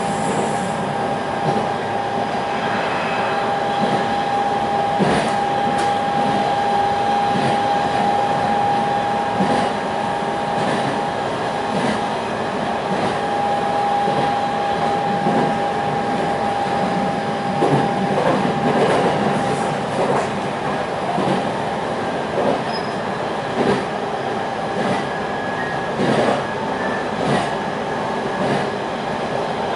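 Electric passenger train running at speed, heard from inside the car: a steady rumble of wheels on rail, with a steady high-pitched tone through the first half that fades out a little past the middle, and scattered sharp knocks that come more often near the end.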